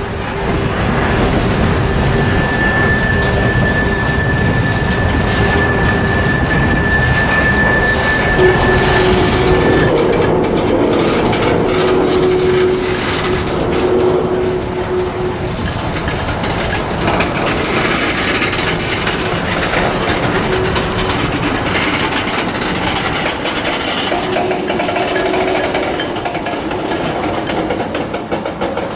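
Freight train's boxcars and tank cars rolling past close by: a steady rumble and clatter of steel wheels on the rails. A thin, high, steady wheel squeal sounds from about one second in until about ten seconds in.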